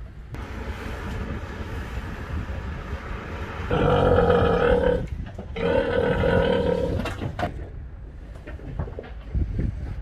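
Pig in a livestock transport truck squealing: two long, loud squeals, the first about four seconds in and the second just after, over a low rumble with occasional knocks.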